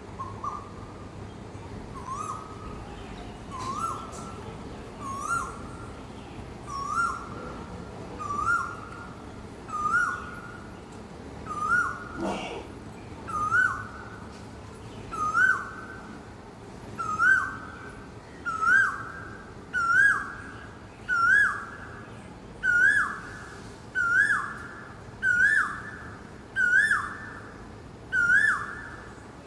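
Asian koel calling: a long series of repeated ko-el whistles, about one every 1.3 seconds, each one louder and a little higher than the last.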